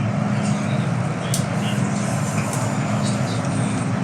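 MTR M-train electric multiple unit running between stations, heard from inside the carriage: a steady low rumble and hum, with one sharp click about a second and a half in.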